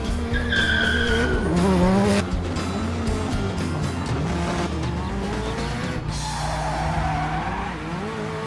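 Race-car engine sound effect revving up and down, with a high falling tyre squeal about half a second in and another skid squeal around six seconds in, over background music.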